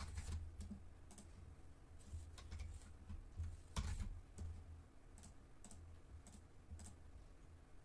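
Faint, irregular clicks of a computer keyboard and mouse as values are entered into a software dialog box, about a dozen in all, the sharpest nearly four seconds in, over a low steady hum.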